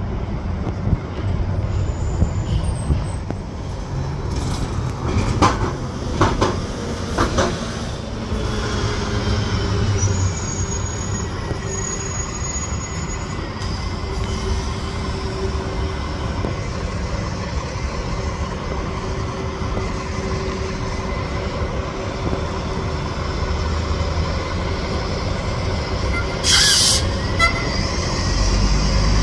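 Rail train running through a station with a steady rumble. A few sharp clacks come about five to seven seconds in, with a faint high wheel squeal after them and a brief loud hiss near the end.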